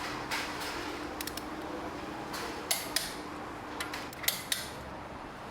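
Scattered metallic clicks and clinks at irregular intervals from tools working on a car's wheel nuts as they are checked for tightness, over a steady low hum.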